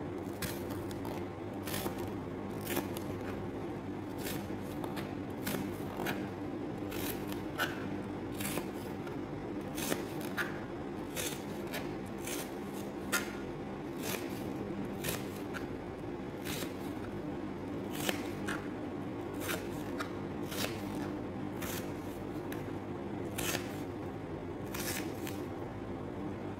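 Kitchen knife cutting watermelon rind on a plastic cutting board: irregular sharp taps as the blade goes through and hits the board, over a steady low hum.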